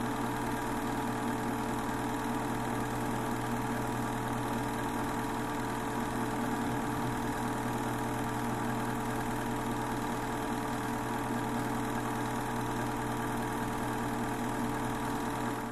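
A machine running steadily: an even, unchanging drone with a steady hum, like an idling motor, that cuts off suddenly at the end.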